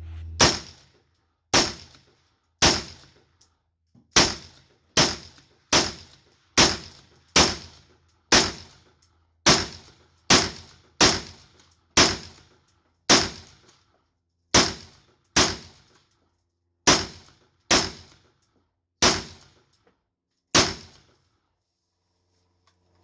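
AR-15 rifle with an 18-inch barrel firing about twenty rounds of 62-grain SS109 5.56 ammunition in steady semi-automatic fire, roughly one shot a second, stopping a couple of seconds before the end. The rifle feeds and fires each round from the magazine without a stoppage.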